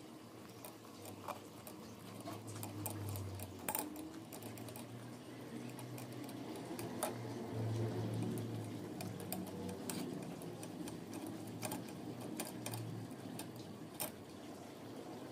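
Metal spoon pressing and mashing boiled guavas in a wire-mesh strainer to squeeze out the pulp, with soft scraping and irregular sharp clicks of the spoon against the metal mesh.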